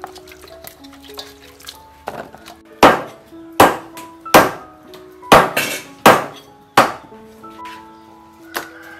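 Cleaver chopping raw chicken on a thick wooden chopping block: six heavy chops, about one every 0.8 s, starting about three seconds in, over background music.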